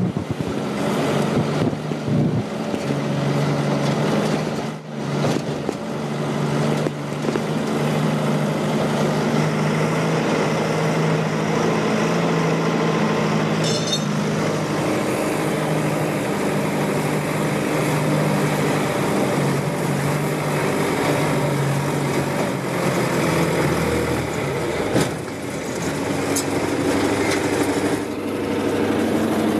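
Log skidder's engine running steadily, heard from inside the operator's cab.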